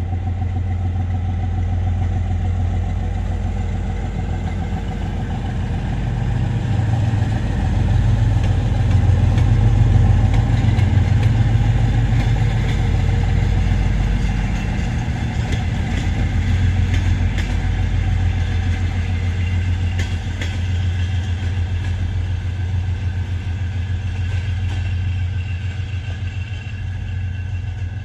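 2TE10L twin-section diesel locomotive's 10D100 two-stroke diesel engines running as it pulls a train past, a steady low drone that swells as the locomotive comes closest. A run of sharp clicks is heard about halfway through.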